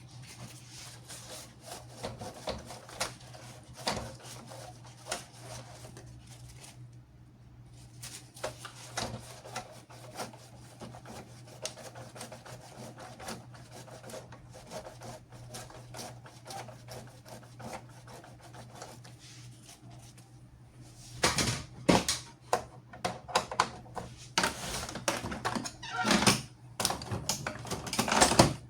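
Irregular clicks and rattles from hands-on work on an Epson L3150 inkjet printer's mechanism, over a steady low hum, growing into louder clattering from about three quarters of the way in.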